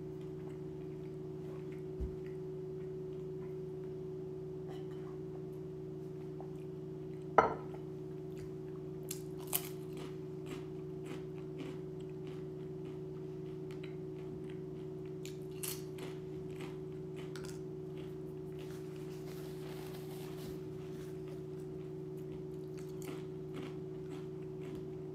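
Someone crunching and chewing crisp tortilla chips, a scatter of short crackly crunches with one loud sharp sound about seven seconds in, over a steady low hum.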